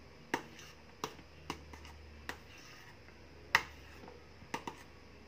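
A spoon tapping and knocking against the side of a mixing bowl while stirring condensed milk into thick whipped cream: about nine light, irregular clicks, the sharpest about three and a half seconds in.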